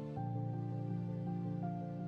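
Soft background music: slow, calm instrumental notes with a gentle melody over held chords.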